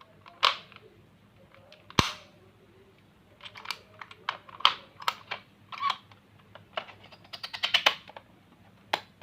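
Small hard plastic objects being handled: irregular sharp clicks and snaps, with one loud knock about two seconds in and a quick run of clicks through the middle.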